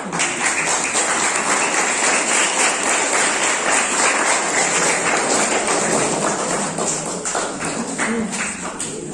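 Crowd clapping, a dense patter of many hands that starts as a man's speech ends and eases off slightly after about six seconds.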